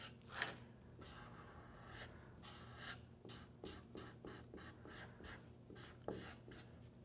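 Felt-tip marker scratching on paper while a drawing is coloured in: faint strokes, with a run of quick short back-and-forth strokes, about three or four a second, through the middle.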